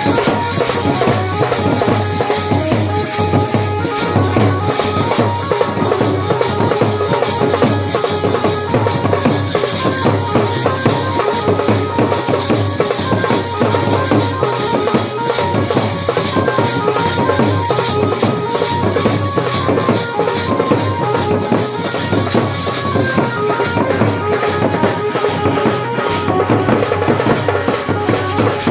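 A live village band playing a Devi bhajan tune: a large bass drum beaten with sticks in a steady, continuous rhythm, with jingling percussion and a held, sustained keyboard melody over it.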